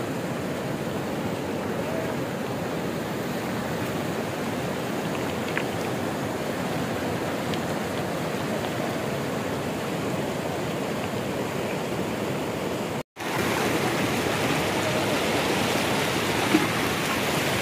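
A swollen, muddy river in flood after heavy rain, its water rushing steadily over stones. The sound breaks off for an instant about thirteen seconds in and comes back a little louder.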